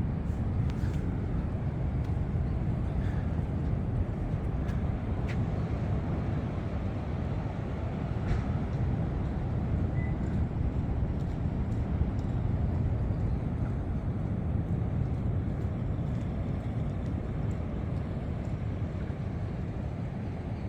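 Surf on a sandy beach with wind buffeting the microphone: a steady low rumble with no pauses.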